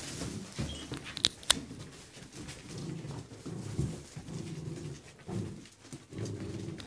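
Puppies and dogs at play, making low growling and panting sounds, with two sharp clicks a little over a second in.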